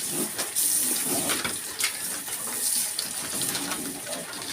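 A litter of young piglets grunting and scuffling as they fight in the pen: scattered clicks and short low grunts over a steady high hiss.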